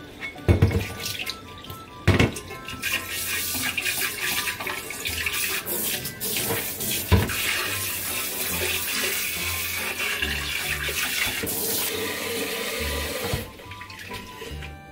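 Water running from a tap for about ten seconds, stopping fairly suddenly near the end, with a few knocks near the start. Background music plays under it.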